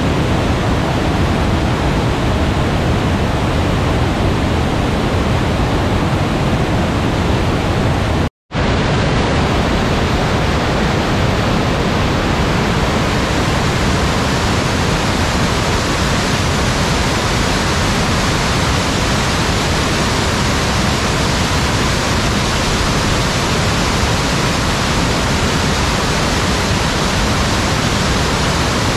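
Waterfall rushing, a loud, even, unbroken wash of noise, cut off for a split second about eight seconds in.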